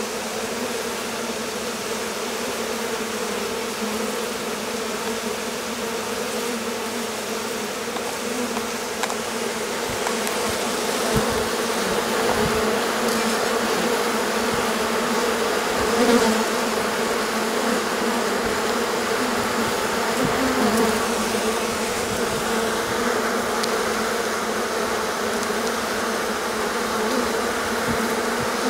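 A mass of honeybees buzzing at the hive entrance as the colony swarms: a steady dense drone that grows somewhat louder about a third of the way in.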